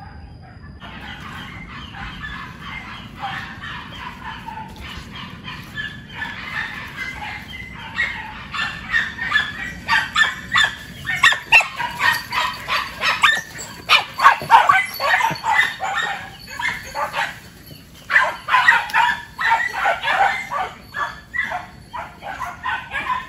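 A pack of civet-hunting dogs barking and yelping in rapid, overlapping yips while on the chase. The calls grow louder and denser from about eight seconds in.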